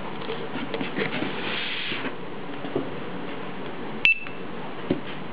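Handheld barcode scanner giving a single short, high good-read beep about four seconds in, as it reads a barcode label. Soft clicks and knocks of handling come before it.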